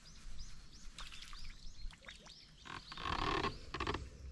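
Animal calls: a quick run of short, high chirping notes, followed about three seconds in by a louder, rough, noisy sound.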